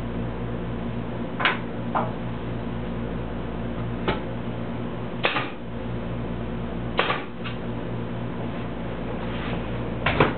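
Pneumatic nail gun firing about eight sharp shots at irregular intervals, some in quick pairs, nailing ribs onto a curved wooden form, over a steady low hum.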